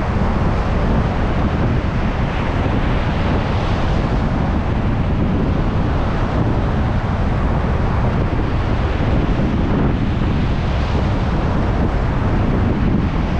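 Stormy ocean surf breaking on a beach, with strong wind buffeting the microphone: a steady, dense rush with a heavy low rumble and no distinct single wave crashes.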